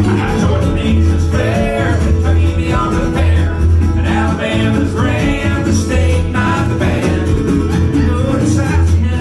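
Live country band playing a song on acoustic guitar, resonator guitar and upright bass, with a lead voice and a harmony voice singing together.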